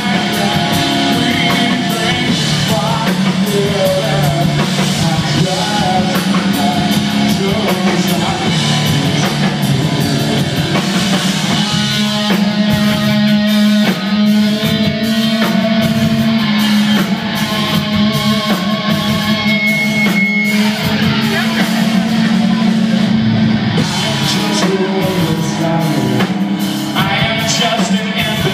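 Live rock band playing loudly: electric guitars and bass over a drum kit.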